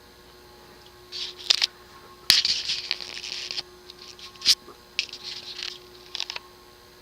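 Several bursts of scratchy rustling with a few sharp clicks over about five seconds, over a steady faint hum.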